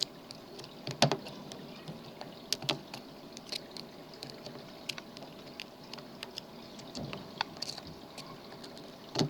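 Irregular small clicks and taps of a lock pick and tension wrench working inside a pin-tumbler lock, the sharpest about a second in and just before the end, over a faint steady hiss.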